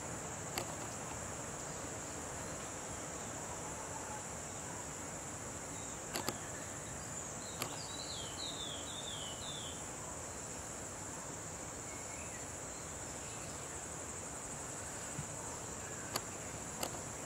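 Steady high-pitched insect trill over an even hiss. A quick run of short falling chirps comes about eight seconds in, and a few sharp clicks are scattered through.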